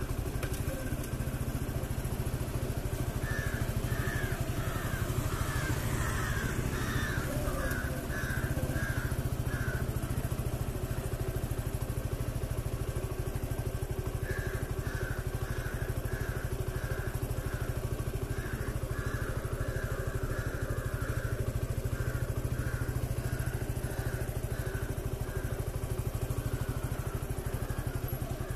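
TVS Apache RTR 180's single-cylinder engine running steadily at low speed. Over it, a bird calls in quick repeated series, about two calls a second, twice.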